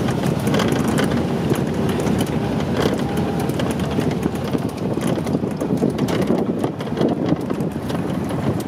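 Truck ride on a bumpy dirt road: the engine and tyres running in a steady low noise, with the open rear's metal frame rattling and knocking over the bumps.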